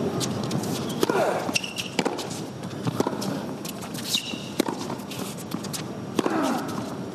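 Tennis rally on an indoor hard court: racket strokes and ball bounces about a second apart, with short high shoe squeaks on the court surface.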